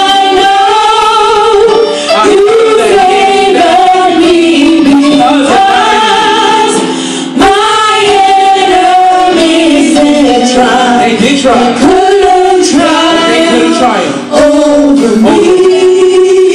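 Gospel song sung live into microphones by a group of singers, with women's voices prominent. There is a brief break in the singing about seven seconds in.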